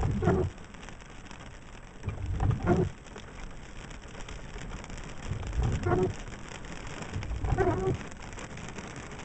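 Steady rain falling on a car, with the windshield wipers sweeping across the wet glass four times, each pass a short low thump with a scraping sound.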